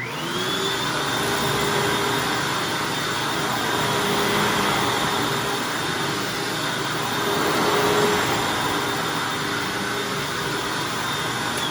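Hoover Anniversary upright vacuum cleaner starting up, its motor whine rising quickly to a steady high pitch, then running steadily on carpet while sucking up pet hair.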